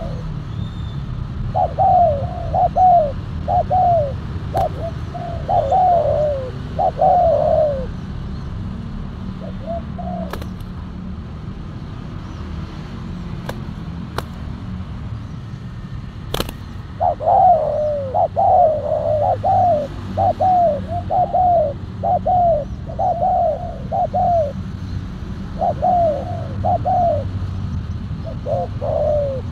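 Spotted doves cooing in runs of short, repeated low coos: one run in the first few seconds and a longer one from about the middle onward, after a pause of about ten seconds. A steady low rumble runs underneath, and there is a sharp click partway through.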